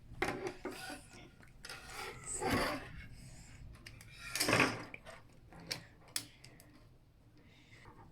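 Plastic construction-toy parts being handled, with three rubbing, scraping passes and a few sharp clicks.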